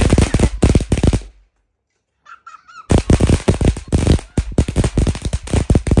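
Ground fountain firework crackling, a dense run of rapid sharp pops. It breaks off briefly about a second and a half in and starts again at full strength about three seconds in.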